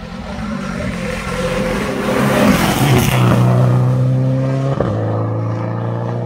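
Rally car approaching on full throttle and passing close, its engine getting louder to a peak about three seconds in. It then holds a steady, even engine note as it drives away, with one short crack about five seconds in.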